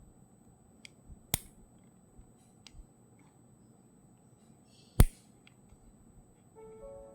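A few sharp clicks over quiet background hiss, one about a second in and a much louder snap about five seconds in. Background music starts near the end.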